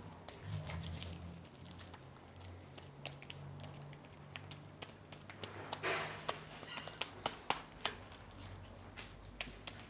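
Blue glue slime squished and kneaded by hand, giving off irregular small sticky clicks and pops, with a brief squelch about six seconds in; the slime is nearly set and still slightly sticky.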